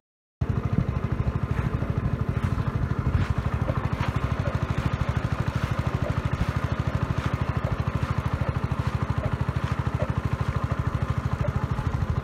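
A small combustion engine running steadily at an even speed, with a fast regular putter.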